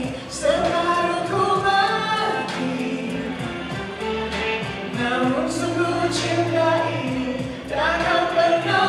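A male and a female singer performing a live duet with band backing. Their voices carry a sung melody over steady bass notes, with a few sharp percussion strokes.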